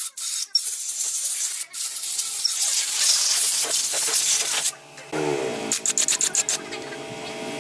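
Sanding: rough, rasping rubbing strokes, followed from about five seconds in by a steady hum with overtones.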